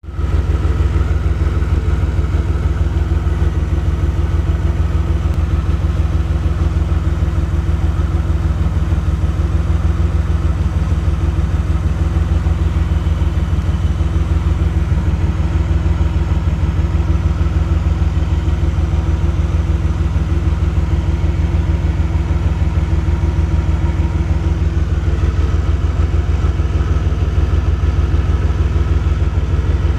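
DeLorean DMC-12's 2.85-litre PRV V6 idling warm, with a fast, even pulsing that holds steady throughout; it is running a rough idle.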